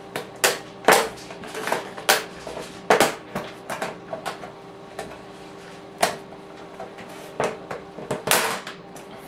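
Plastic snap clips of an Acer Aspire Revo nettop's top cover clicking and popping as fingers pry the lid loose: a string of irregular sharp clicks, a dozen or so spread unevenly, with a quick double snap near the end.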